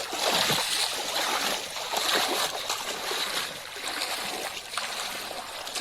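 Water splashing and trickling in shallow water, loudest in the first second and again about two seconds in.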